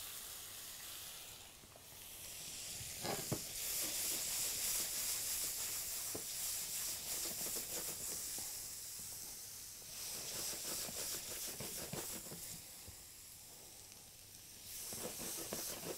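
Sliced mushrooms sizzling in butter in a stainless steel frying pan while they are stirred with a silicone spatula. The sizzle swells about two seconds in and dips again near the end.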